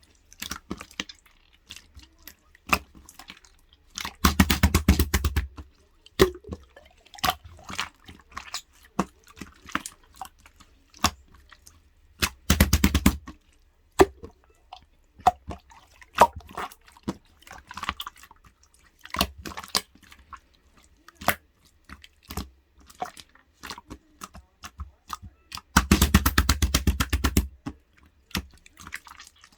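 Light-green clear slime of a firm texture being pressed and poked by hand, giving scattered sharp clicks and wet pops. Three times, a little after four seconds, around thirteen seconds and near the end, it gives a quick run of crackling pops lasting a second or so.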